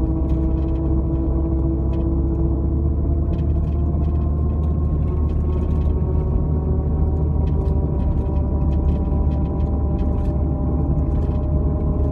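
Jeep cruising at a steady speed, heard inside the cabin: a low road rumble with a steady drone of several held tones from the drivetrain. This is the noise that shows up at steady speed, which the owner suspects comes from the front drive shaft.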